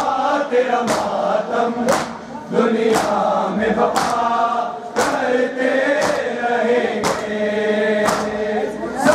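Crowd of men chanting a Shia noha in unison while beating their chests in matam, one sharp slap about every second keeping time.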